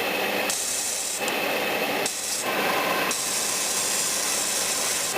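Airbrush spraying Alclad chrome lacquer: a steady hiss of air that turns sharper and brighter in three stretches, the longest starting about three seconds in.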